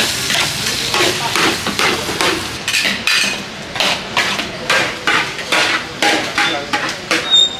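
A metal spatula stirring and scraping in a hot pan at about two strokes a second, over food sizzling, with a brief metallic clink near the end.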